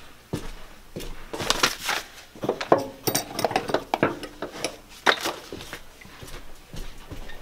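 Metal parts and tools clinking and clattering as they are handled, in irregular knocks, with a brief metallic ring about three seconds in.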